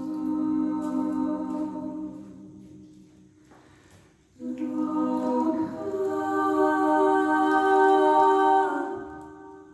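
Two women's voices singing long, wordless held tones together in harmony, in two phrases with a short break about halfway through.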